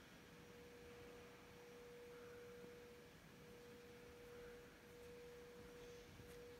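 Near silence: quiet room tone with a faint, steady pure tone held throughout.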